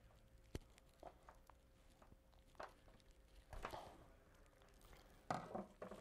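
Faint clicks and rustles of hand wire strippers cutting and pulling the insulation off one strand of a submersible pump cable. A slightly louder clatter near the end comes as the strippers are set down on the wooden bench.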